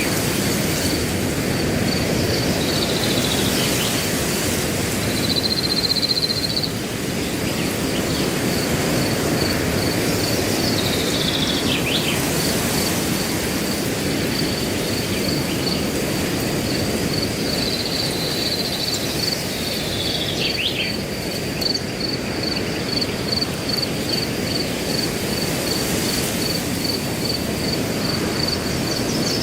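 Wind rushing steadily through grass, with a cricket chirping evenly at a high pitch, about three chirps a second. A bird gives a short call of falling notes four times, about every eight or nine seconds.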